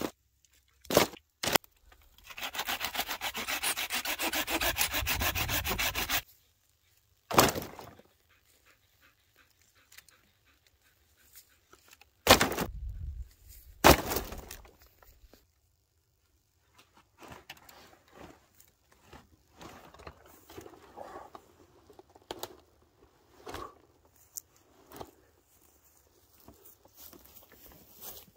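Dry firewood being handled on a canvas tarp: a couple of sharp clicks, then about four seconds of steady rasping as wood rubs against wood. Then three loud, sudden cracks of dry branches snapping, and soft rustling through dry grass near the end.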